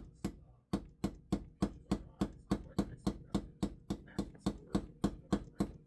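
Small hammer tapping a pocket knife's pin head in a quick, even rhythm of about three or four light strikes a second, peening the pin over into a rounded, convex head.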